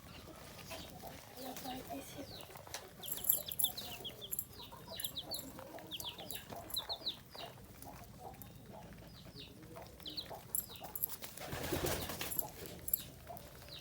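Chickens feeding: a run of short, high cheeps from chicks, with faint low clucking underneath. Near the end comes a brief louder rush of noise.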